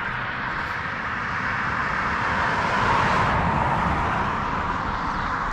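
A car passing on a highway: tyre and road noise swelling as it nears, loudest about three seconds in, then fading as it goes by.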